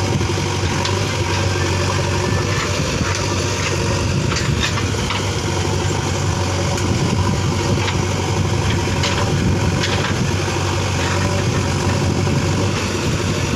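JCB 3DX backhoe loader's diesel engine running steadily as it works, moving soil into a pit, with a few light clicks and knocks over it.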